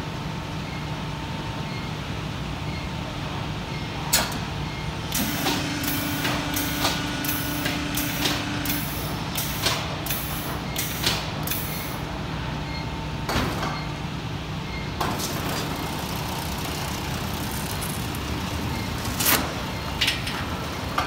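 Italpresse panel press line running with a steady mechanical hum. From about five seconds in, a quick series of short, sharp air hisses comes about twice a second for several seconds, with a few sharp knocks before and near the end.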